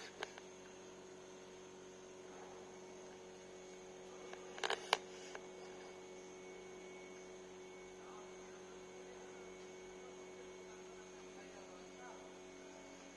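Steady electrical mains hum made of several pitched lines. A brief cluster of sharp clicks comes about five seconds in.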